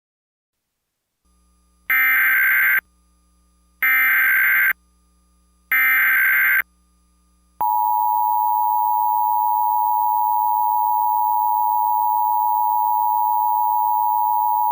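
Emergency Alert System header: three short bursts of buzzy SAME digital data tones, each about a second long and about a second apart. Then, about seven and a half seconds in, the steady two-tone EAS attention signal begins and holds.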